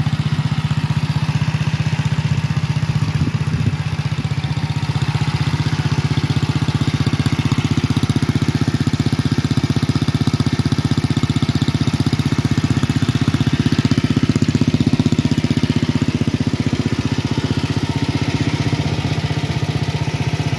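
Engine of a 1967 Sears Custom 6 garden tractor running steadily, with the tractor standing still.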